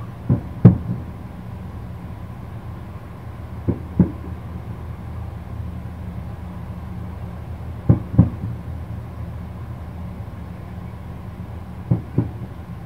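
Distant aerial firework shells bursting: four double booms about four seconds apart, over a steady low rumble.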